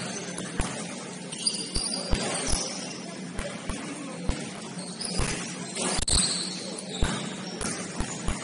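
Basketball game play on a court: a ball bouncing in irregular thumps, and sneakers giving brief high squeaks on the floor several times.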